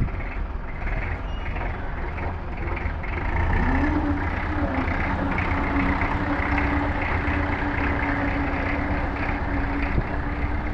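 Voltas forklift's engine running as the forklift is driven, revving up about three and a half seconds in and then holding a higher, steady note.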